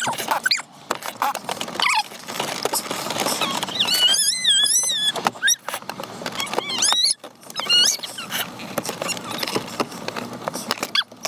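A dog whining in high, wavering squeals about four seconds in and several short squeaks a little later, over repeated clicks and knocks of a screwdriver working at a steering wheel's airbag release.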